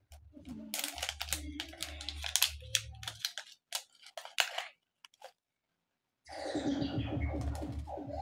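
Pregnancy test wrapper being opened and handled: a burst of crinkling and crackling plastic-foil packaging with a few more crackles after it. Near the end, a couple of seconds of a pitched, music-like sound.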